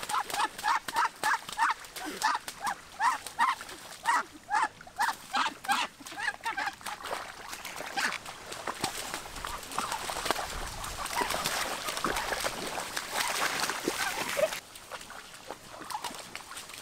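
A caught Muscovy duck calling in a run of short, repeated calls, about three a second. Through the second half, feet splash and slosh through shallow muddy water, and the splashing ends abruptly near the end.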